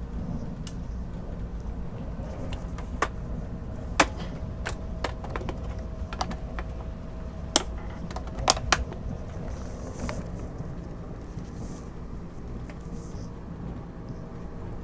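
Steady low running rumble inside the passenger cabin of a Taiwan Railways Puyuma (TEMU2000) tilting electric train. Scattered sharp clicks and knocks come through, the loudest about four seconds in and a quick pair near the middle.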